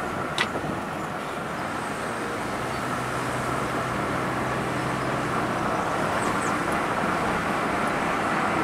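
Steady road and engine noise of a moving car heard from inside the cabin, growing a little louder towards the end, with one sharp click about half a second in.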